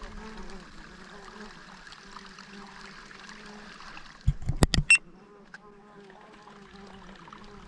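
Insects buzzing steadily over a faint trickle of water. About four seconds in, a quick run of loud sharp knocks lasting about half a second.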